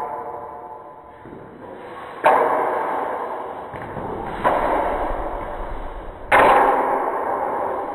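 Weapons clashing in staff sparring: three sharp strikes about two seconds apart, each ringing out slowly in a reverberant hall.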